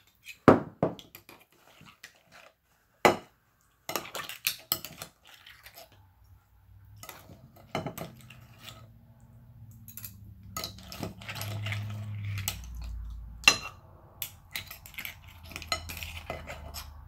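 Metal spoon clinking and scraping against a ceramic bowl of clams in their shells, with irregular sharp clinks; the loudest come about half a second in, around three seconds and near thirteen and a half seconds. A low hum comes up from about seven seconds in.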